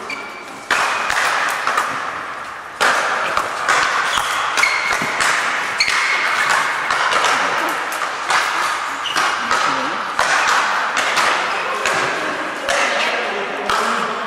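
Speed-ball rackets striking the tethered ball in quick exchanges: many short, sharp hits at uneven intervals, with voices in the hall behind.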